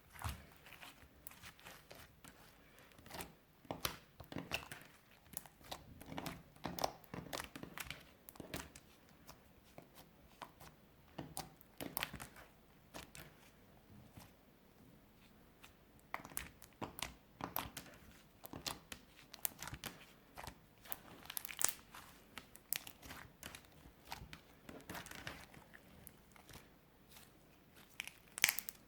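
Clear slime being squished, stretched and folded by hand, crackling and popping with many irregular sharp clicks as air pockets burst.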